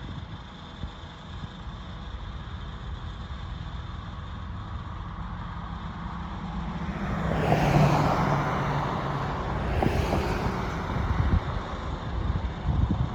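A vehicle passes by, swelling to its loudest about eight seconds in and then fading, over a steady low rumble.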